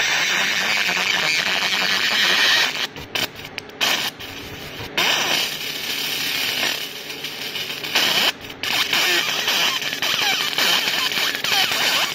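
Raycus fiber laser marking machine black-marking aluminum: a steady high hiss and crackle with thin whining tones that glide up and down as the beam traces the design. It drops off briefly a few times, about three to five seconds in and again about eight seconds in.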